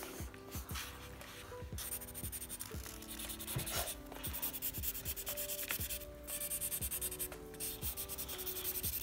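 Marker pens scribbling on a paper colouring page: quick back-and-forth scratchy strokes in runs, with two people colouring at once.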